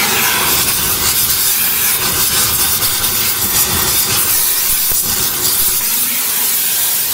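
Gas torch burning with a loud, steady hiss, heating a damaged car frame member so it can be pulled straight.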